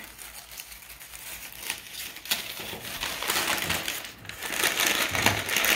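Brown paper lunch bag rustling and crinkling as it is handled and pulled open, its cut paper strips rubbing together. A few scattered crinkles at first, then denser and louder rustling about halfway through.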